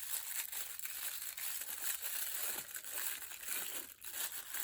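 Thin plastic wrapping crinkling and rustling continuously as it is handled and opened, with many small irregular crackles.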